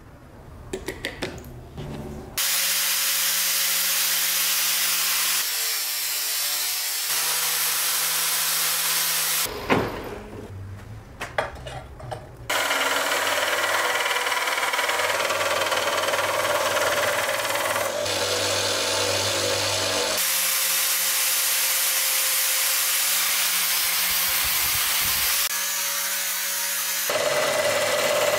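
Power grinding tools running steadily against metal: a grinder runs from about two seconds in, stops for a few seconds of clicks and handling knocks, then a narrow belt sander runs steadily for the rest, with work pressed against the belt and sparks flying.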